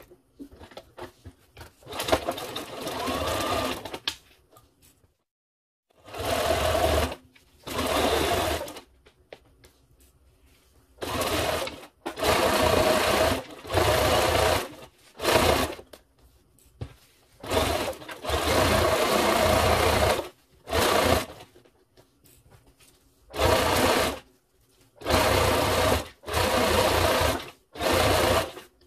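Sewing machine with a zipper foot stitching a leatherette strip to a zipper, run in stop-start bursts of one to two seconds with short pauses between.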